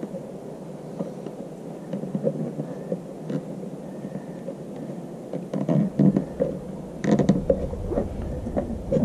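Rustling and small clicks of electrical wire being handled and pushed into a plastic outdoor electrical box. The handling gets busier partway through, and a low rumble comes in about seven seconds in.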